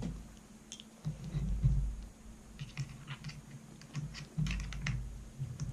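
Small metallic clicks and taps of a Mauser rifle bolt's parts being handled and worked back together by hand, with a few dull low thumps.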